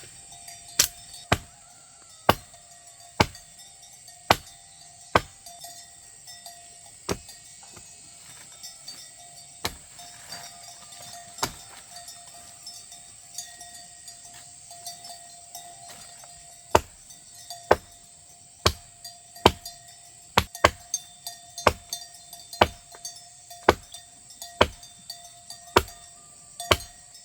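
Repeated sharp chopping strikes of a blade into wood, irregularly about once a second, pausing for a few seconds mid-way, over a steady high background drone.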